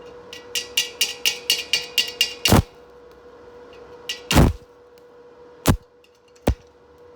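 Rapid light metal-on-metal strikes on a steel tank, about four or five a second with a ringing tone, then a few single heavier knocks spaced a second or so apart. A faint steady hum runs underneath.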